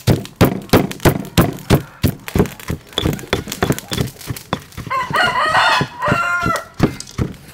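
Steady rhythmic strikes, about three to four a second: a stone pestle pounding chili and garlic in a stone mortar, then a cleaver chopping sausage on a wooden chopping board. About five seconds in, a long animal call that wavers in pitch sounds over the strikes for nearly two seconds.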